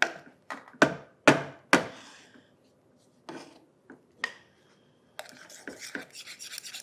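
Wooden spoon knocking and scraping against a saucepan of thick custard, a handful of sharp knocks in the first two seconds. Then, from about five seconds in, a wire whisk scraping rapidly around the pan.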